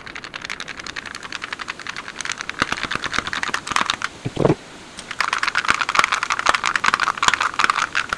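Hot oil in a kadai crackling and sizzling hard as strands of besan sev dough are pressed from a sev maker into it. The crackle eases briefly a little after four seconds, then picks up again more strongly as a fresh batch of strands drops in.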